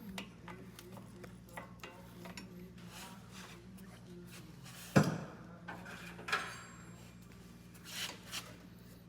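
Metal tools clinking and scraping on the stubborn steel retaining clip on a car's front suspension as it is worked loose, with one sharp metallic clank about five seconds in and a smaller one soon after, over a steady low hum.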